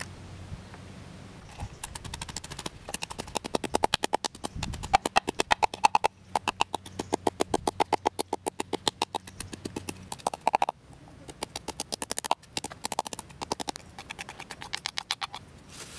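Wooden pestle pounding dried red chillies in a wooden mortar: quick, even knocks of wood on wood, about five a second, stopping briefly twice.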